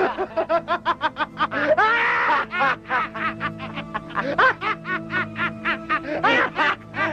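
A person laughing in a fast run of short bursts over steady background music.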